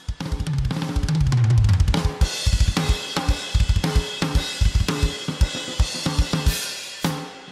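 Drum kit played hard and fast: rapid bass-drum strokes with snare hits, and cymbals ringing from about two seconds in. A low tone slides downward about a second in.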